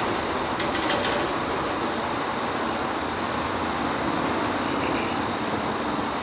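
Freight train cars rolling past on the rails, a steady rumble and rush of wheels on track with a few sharp clicks about a second in.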